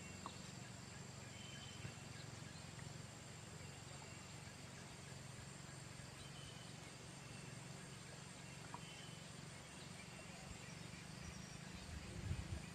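Faint outdoor background: a steady low rumble with a few short, faint high chirps scattered through it.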